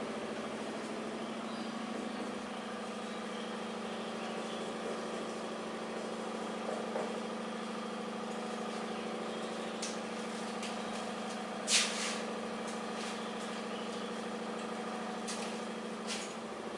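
Steady mechanical hum with a low drone and fainter higher tones, broken by a few short sharp clicks, the loudest about two-thirds of the way through.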